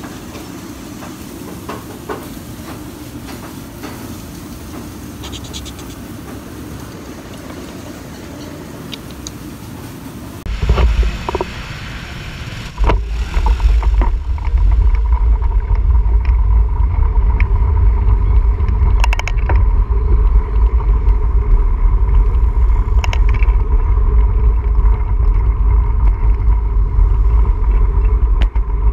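Wind buffeting the microphone of a bike-mounted action camera while cycling in town traffic, a loud low rumble with motor scooters running around it. It sets in about ten seconds in, after a stretch of quieter steady background sound.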